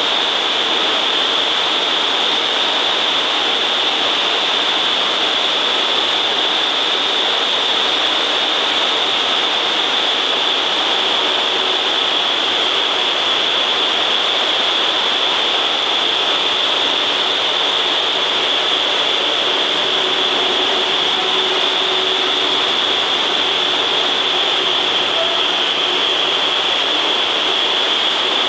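Vertical wind tunnel (indoor free-fall simulator) running: a loud, steady rush of air blowing up through the flight chamber, with a constant high hiss.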